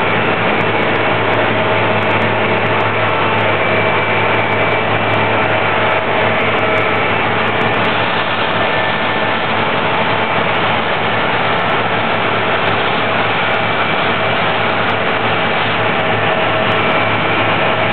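Concrete paving machine's engine running steadily, a loud, constant drone with a low hum.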